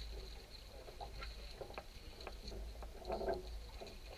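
Scattered light taps and clicks of rope and metal fittings being handled, as a boat's painter is lashed to its launching trolley, with a louder rustling scrape about three seconds in.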